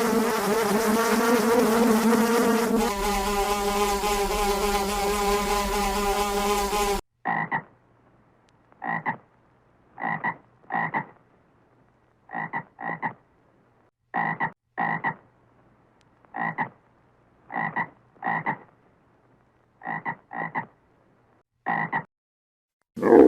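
A buzzing insect hums steadily, shifting pitch about three seconds in and cutting off about seven seconds in. Then a frog croaks in about fifteen short, separate calls, sometimes in pairs, with pauses between.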